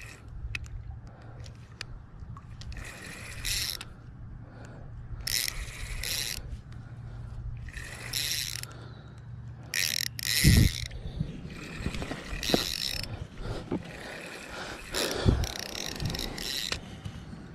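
Spinning reel on a light rod-and-reel combo being cranked in short spurts, about seven bursts of whirring, while a hooked fish is reeled in. Two dull knocks come in the second half.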